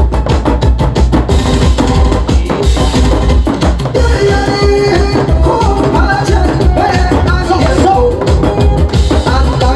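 Loud pumba performance music played over a sound system: a fast, heavy drum beat with strong bass, and a melody line joining about four seconds in.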